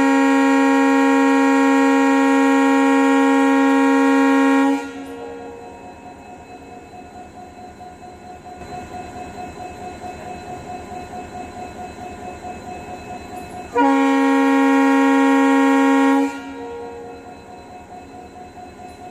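WDP4D diesel locomotive's horn sounding one long blast of about five seconds, a chord of several tones together. Between blasts the locomotive pulls away with an evenly pulsing engine sound and a steady whine. A second, shorter horn blast of about two and a half seconds comes about fourteen seconds in.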